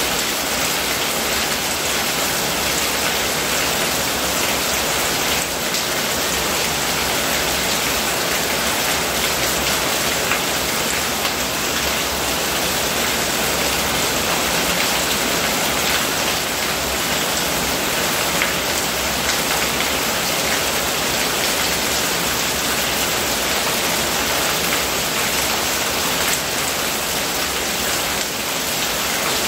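Steady rain falling, with a stream of runoff pouring off a roof edge and splashing on the ground below.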